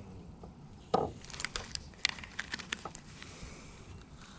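Hard gear being handled while a caught bass is weighed: a knock about a second in, then a quick, irregular run of sharp clicks and taps.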